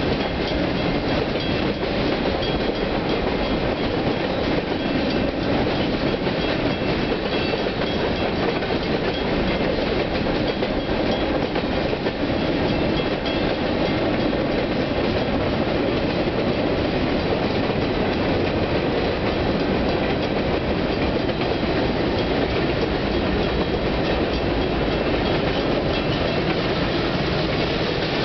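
Freight cars of a Union Pacific manifest train rolling steadily past over a road grade crossing, their steel wheels running over the rails.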